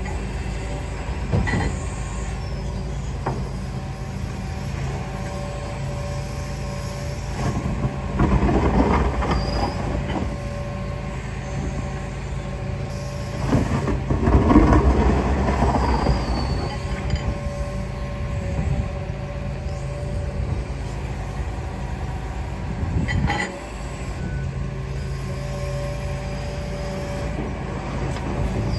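John Deere 245 tracked excavator running steadily as it digs and swings loads of dirt, the engine and hydraulics rising twice as it works harder. A couple of sharp metal clanks come from the bucket and arm, one just after the start and one near the end.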